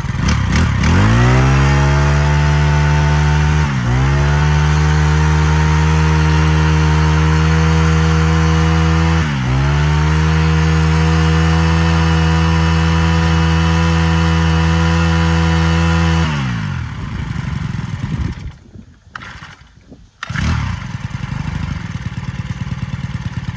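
Honda GX22 four-stroke brush cutter engine revved up to full throttle and held there, dipping briefly twice. About two-thirds of the way through the throttle is released and it winds down, cutting out briefly twice before settling into an uneven idle near the end.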